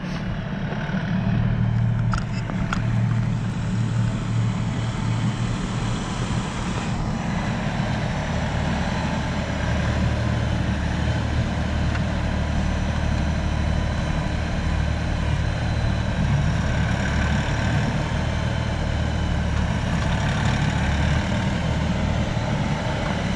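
LS MT342 compact tractor's diesel engine running steadily while the tractor moves snow and drives past close by. Its engine note drops lower about eight seconds in.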